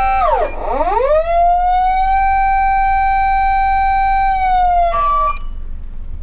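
SAP-520FB electronic siren amplifier sounding a loud, reedy siren tone. The tone dives sharply in pitch and sweeps back up within the first two seconds, holds steady, then sags slightly, with a brief higher tone just before it cuts off about five seconds in. A low hum continues underneath.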